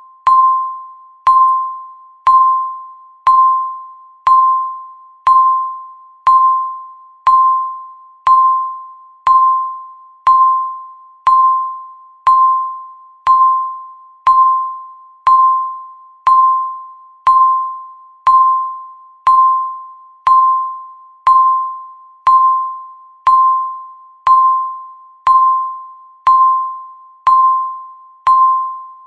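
Countdown timer beeping once a second: a single clear electronic tone that starts sharply and fades away before the next beep, repeating evenly.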